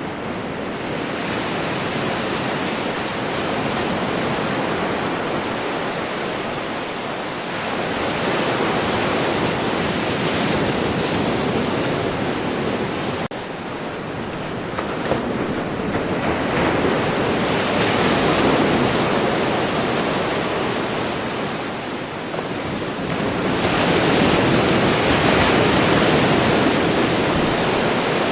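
Sea waves breaking and washing on a shore: a continuous rushing surf that swells and eases as several waves come in.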